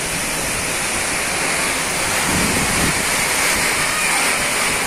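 Heavy typhoon rain and wind: a steady, dense rush of downpour beating on trees, roofs and ground.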